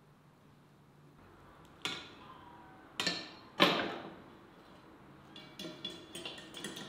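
Wire grill basket clanking against a ceramic plate: three sharp metallic knocks, the third the loudest, then lighter rattling and clicking of the wire mesh as the hinged basket is opened.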